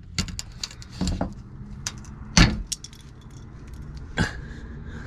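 Plastic interior trim of a Subaru WRX being handled around its pop clips: a run of sharp clicks and light rattles, with the loudest knock about halfway through and another near the end.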